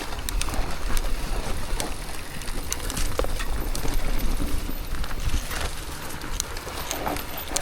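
Mountain bike rolling down a dry, loose dirt trail: tyres grinding over dirt and rock, with scattered sharp clicks and rattles from the bike, and wind rumbling on the microphone.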